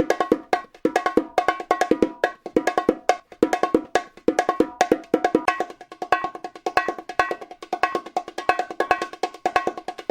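Bongos played in a fast, steady rhythmic pattern, several sharp hand strokes a second on the two pitched heads.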